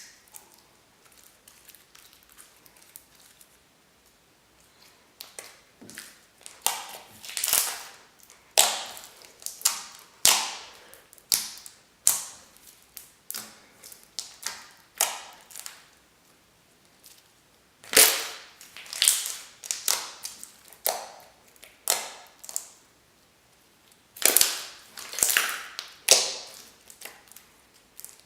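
Slime being squished and poked by hand, trapped air popping out in loud, irregular pops and crackles, some in quick clusters.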